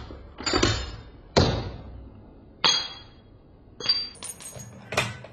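A string of sharp metallic clicks and clinks, several with a brief high ring, from the metal parts of a Remington 700 bolt-action rifle being handled.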